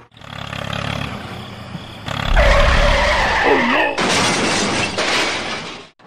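Crash sound effects for overturning toy tractors: a low boom with a falling screech about two seconds in, then a loud crashing noise that cuts off suddenly near the end.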